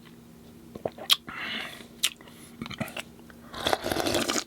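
Close-miked eating sounds from a bowl of fresh fruit in coconut water: a few sharp mouth clicks and two longer noisy bursts, about one and a half and four seconds in.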